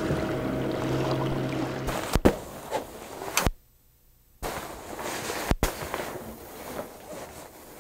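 A steady motor hum with a few held tones for about two seconds. Then come three sharp clicks and a second of dead silence where the sound track is cut, followed by steady background noise.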